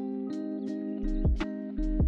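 Background music: guitar chords with a deep bass line and a regular percussive beat.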